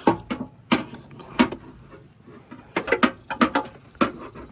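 Hands working a truck antenna base back into its fender opening: a series of sharp clicks and knocks, with a quicker run of them about three seconds in.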